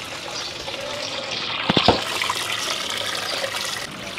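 Salt brine poured from a stainless-steel bowl over cut lamb pieces in a large steel basin, splashing steadily, to soak the meat before roasting. Two sharp knocks sound a little under two seconds in.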